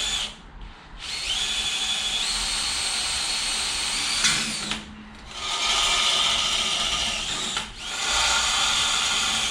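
Electric power drill running as it drills holes in metal, which are to be tapped afterwards. It runs in three stretches with short pauses between, and in the first stretch the whine steps up in pitch.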